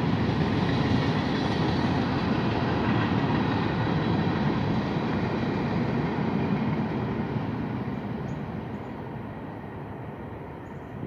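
Freight train of tank cars rolling past on the rails: a steady rumble of wheels and cars that starts to fade away about seven seconds in.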